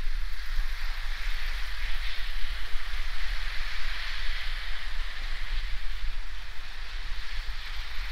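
Hornby OO gauge live-steam A4 locomotive running, giving off a steady hiss of steam that swells a little in the middle, over a steady low rumble.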